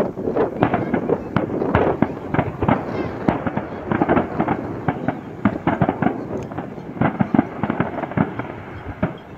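Aerial fireworks display: shells bursting in quick succession, a dense run of bangs and crackles several times a second.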